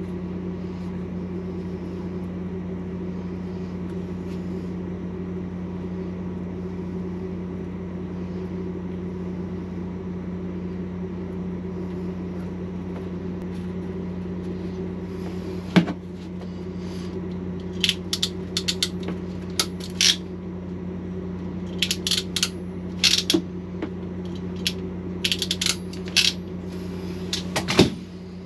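Steady low electrical hum throughout. From about halfway in, scattered sharp clicks and crinkles come in small clusters as a plastic bag of crimp connectors and the wire ends are handled, with the loudest click near the end.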